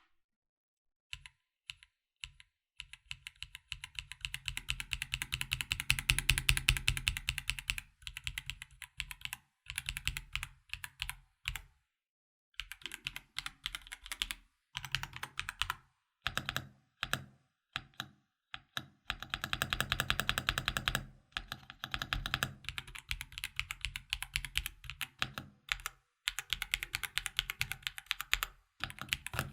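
Typing on a KZZI K75 Pro mechanical keyboard with factory-lubed Rhine Moment linear switches: fast runs of keystrokes broken by pauses and slower single presses. A middle-of-the-road keystroke sound, not too quiet and not fully clicky.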